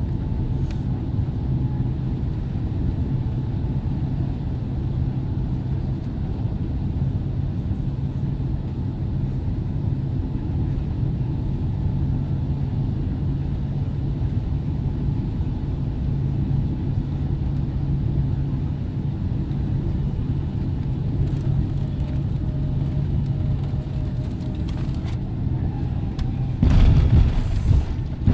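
Steady low rumble and drone of a Boeing 767-300ER's jet engines during a landing approach, with a sudden loud burst of noise about a second and a half before the end.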